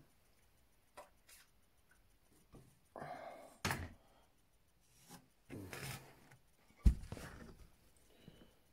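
Handling noises of a mirror and its frame being worked on by hand: scattered clicks and light knocks, a few short rubs, and a sharp thump about seven seconds in.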